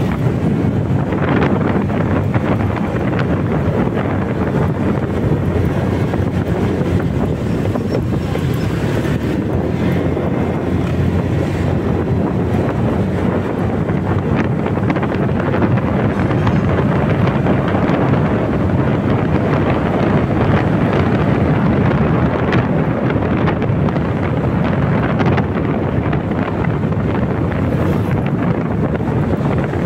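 Steady rush of wind on the microphone of a moving Honda Click 125i scooter at about 40 km/h, with the scooter's engine and tyre noise running under it.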